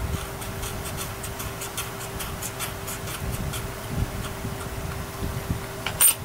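Old alcohol-softened glue being rubbed and scraped off an RC helicopter part: a quick run of scratchy strokes, several a second, then a single sharp click near the end.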